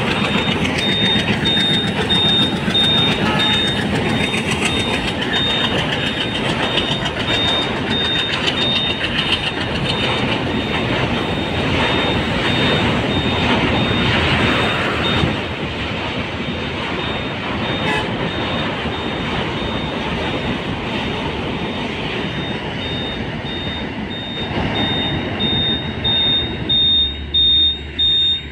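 Passenger train coaches running across a steel girder river bridge: a loud, continuous rumble and clatter of wheels on the bridge. It eases off about halfway through as the train moves away.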